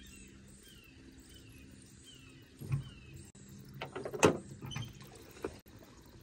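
A few knocks and clunks in a small jon boat, the loudest about four seconds in, over a bird repeating short falling chirps.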